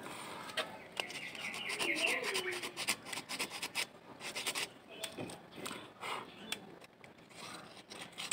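Irregular hand scraping and rubbing strokes, as a part is sanded or filed by hand.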